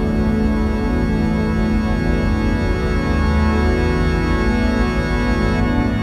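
Slow relaxing background music of held, organ-like chords, over a low steady rumble of the vehicle on the road.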